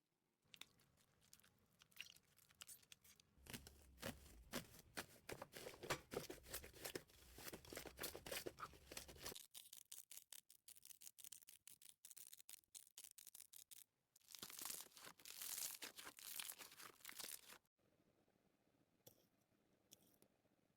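Slime being squeezed and pulled apart by hand, with quiet, dense crackling and popping that comes and goes, thinning to faint clicks near the end.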